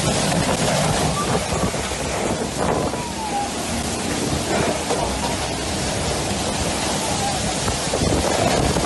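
Storm wind and driving rain in a steady, dense rush of noise, with a faint falling whine about three seconds in.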